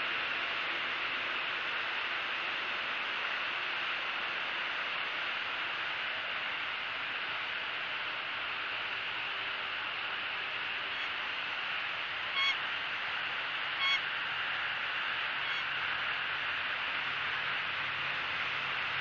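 Steady hiss of background noise. About two-thirds of the way through, two short, high bird calls come a second and a half apart, with a couple of fainter ones around them.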